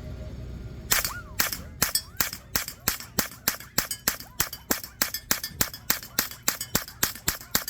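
A rapid string of about 22 semi-automatic rifle shots, roughly three a second, fired at a steel plate, some followed by faint whining ricochets that sound like a cartoon sound effect.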